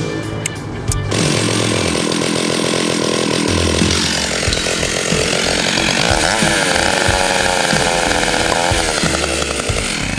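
Stihl chainsaw running, starting about a second in and revving up and down, then cutting off at the end; the chain is being run against a beer bottle's cap to pop it off.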